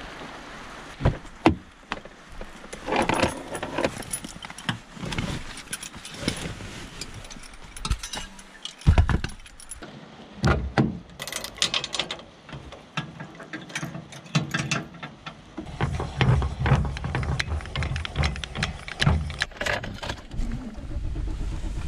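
Irregular clinks, clicks and knocks of things being handled, with a steady low rumble joining in for the last several seconds.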